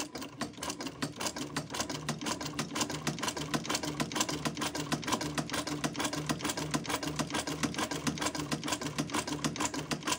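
Adler shoemaker's sewing machine running steadily, its needle mechanism clicking rapidly over a steady motor hum. It is sewing with the thread tension just loosened, which is throwing out loose, looped stitches.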